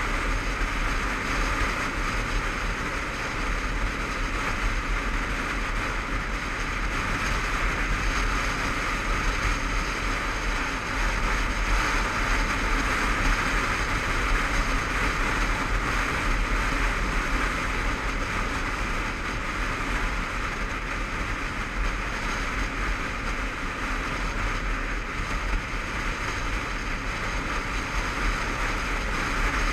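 Steady rush of wind and road noise on a helmet-mounted GoPro while riding a Honda CBF500 motorcycle at road speed, with a low rumble underneath.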